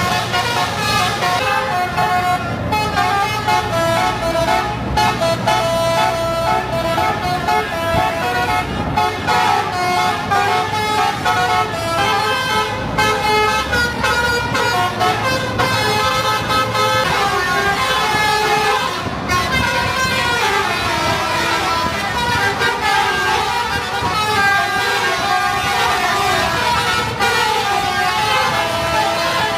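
Telolet multi-tone musical air horn on a lorry, sounding a continuous tune of changing notes over the vehicle's running engine.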